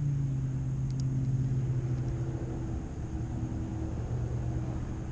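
A motor vehicle's steady engine hum and low rumble, slowly fading away, with a faint tick about a second in.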